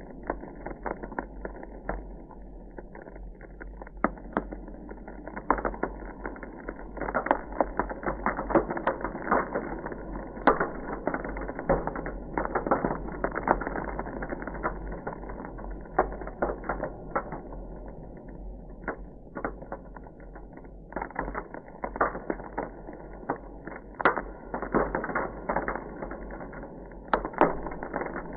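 Ice crackling: a dense, irregular run of small cracks and pops, busier in stretches, over a steady low hum.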